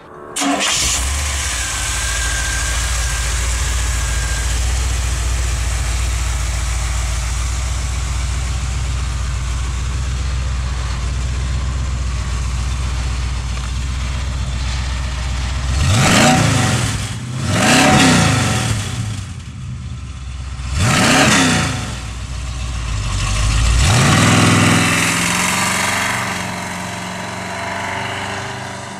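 Chevrolet ZZ 502 big-block V8 with a four-barrel carburettor, idling steadily with a deep rumble. About sixteen seconds in it is revved three times in quick blips. A fourth, longer rev follows as the truck pulls away, and the engine note drops back and runs on more quietly as it drives off.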